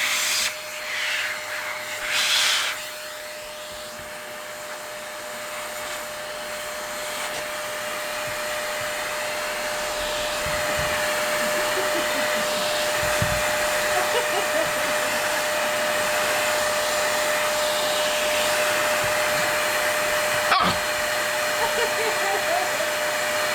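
Vacuum cleaner running steadily with a constant whine, sucking loose dog hair off a grooming brush; its rush grows gradually louder over the first several seconds.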